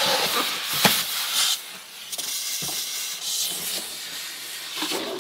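Rustling and scraping of packaging as a boxed full-tower computer case is lifted out and moved, with a few short knocks.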